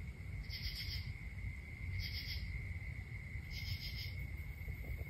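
Night insects calling: a steady high cricket trill, with a raspier, higher call repeating about every one and a half seconds, over a low rumble.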